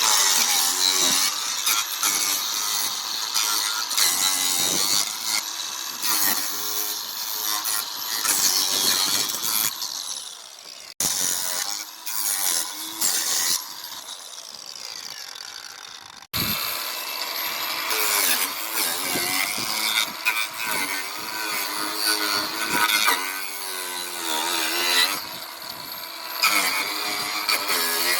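Angle grinder fitted with a Saker chain disc, a small 22-tooth saw-chain wheel, cutting into pallet wood. The cutting is loud, with a quieter stretch of about five seconds in the middle that starts and stops abruptly.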